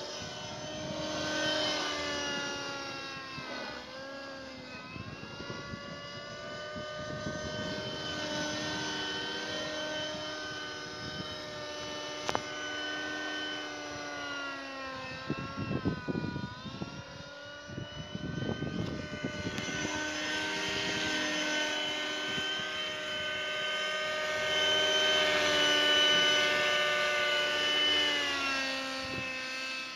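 Engine-powered radio-controlled model helicopter flying, its engine and rotor whine dipping and rising in pitch several times with the throttle. It is loudest near the end, as it flies low and close.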